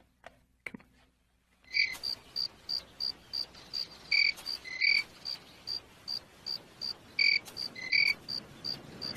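A steady series of short, high cricket-like chirps, about three a second, with occasional lower chirps mixed in. It starts about two seconds in, after a near-silent gap.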